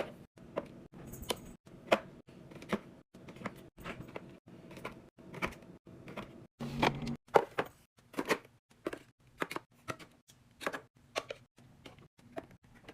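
Repeated clicks and knocks of items and containers being set down and handled while a fridge is restocked, about one to two a second, over a faint steady low hum.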